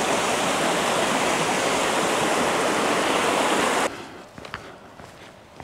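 Shallow stream rushing over rocks, a steady even rush that cuts off suddenly about four seconds in. Faint footsteps on a stony track follow.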